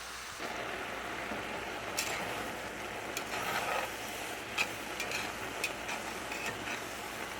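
Food sizzling in a hot pan while being stirred, with a utensil clicking against the pan now and then.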